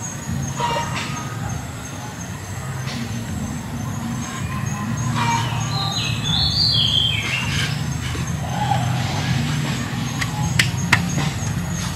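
A low, steady engine-like hum runs throughout. About six seconds in comes a short whistle falling in steps, and two sharp clicks sound near the end.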